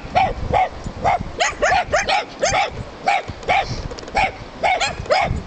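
Dogs barking over and over, short sharp barks about three a second.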